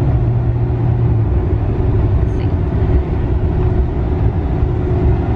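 Steady road and engine noise inside the cabin of a moving vehicle, a constant low hum.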